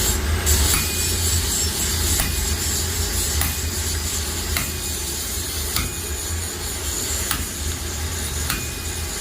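Hand hammer striking red-hot metal on an anvil at an even pace, about once every second, seven blows in all, some with a short metallic ring. A steady low rumble runs underneath.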